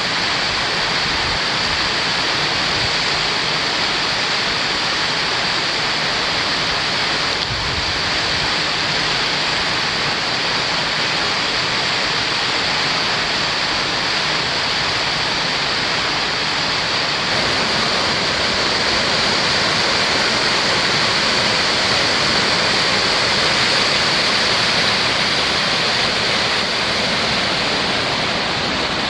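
Waterfall pouring down a rock face into a pool: a steady, unbroken rush of falling water.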